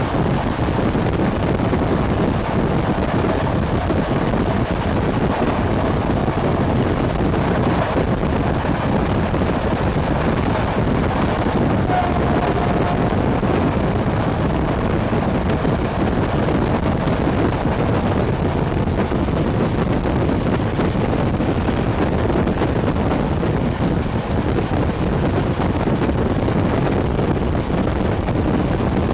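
Wind rushing over the microphone at the open window of a moving passenger train, over the steady rumble of the train, which is hauled by an SU45 diesel locomotive.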